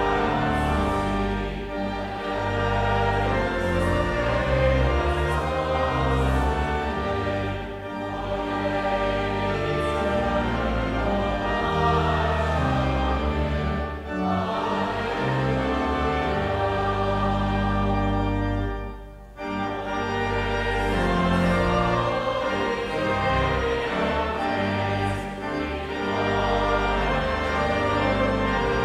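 Congregation singing a hymn with pipe organ accompaniment, in sustained phrases over a steady bass line. The music briefly drops away about two-thirds of the way through, then resumes.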